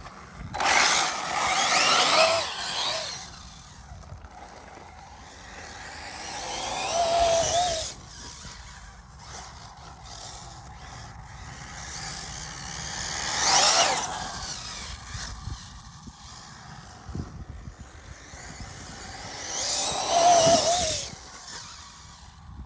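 Arrma Typhon RC buggy's electric motor and drivetrain whining as the car speeds across grass, rising and falling in four passes, with the wavering pitch of the motor spinning up and down between throttle bursts.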